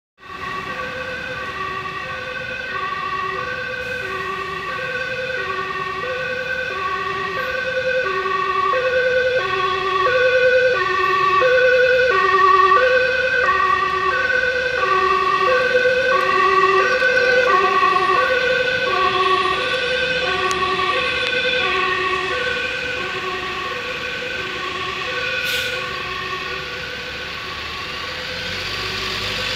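Dutch ambulance two-tone siren, alternating between a high and a low tone about every two-thirds of a second, sounding on an A1 urgent run. It grows louder toward the middle and weakens near the end, over the hum of traffic.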